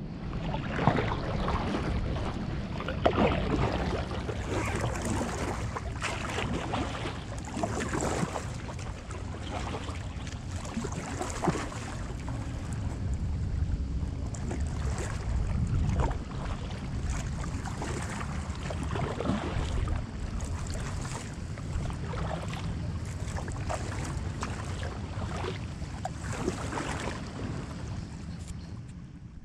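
Paddle strokes splashing and water lapping against an inflatable kayak as it is paddled along, with wind rumbling on the microphone.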